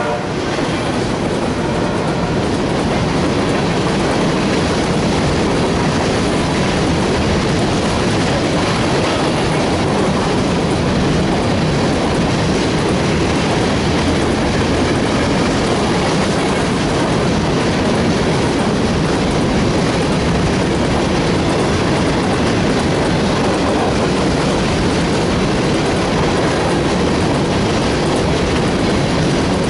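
Freight train of hopper cars rolling past close by: a steady, loud rush and rumble of steel wheels on rail.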